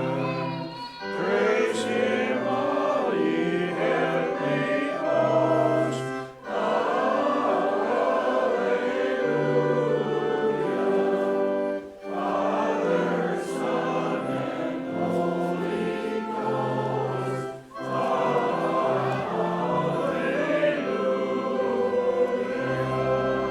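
Choir singing a hymn in long phrases of about six seconds, each ending in a short pause for breath.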